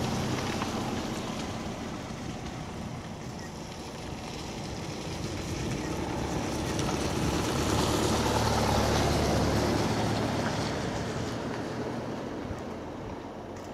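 A motor vehicle passing, its low engine hum and noise swelling to a peak about two-thirds of the way through and then fading.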